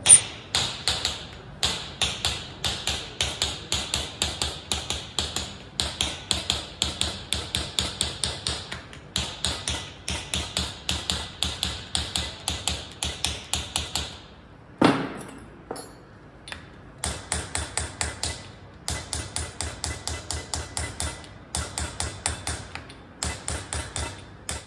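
Small hammer striking a chasing chisel against a metal vase in Persian qalamzani engraving: rapid, even metallic taps in long runs. A little past halfway the tapping pauses, broken by one louder knock, then resumes in shorter runs.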